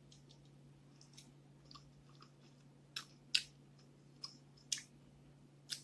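Close-miked eating sounds: chewing with sharp wet mouth clicks, a few faint ones early and about five louder ones in the second half. A faint steady low hum lies underneath.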